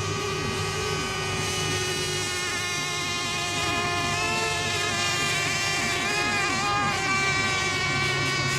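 Several radio-controlled racing boat engines running together at high revs: a steady, layered high-pitched whine whose pitch wavers as the boats circle.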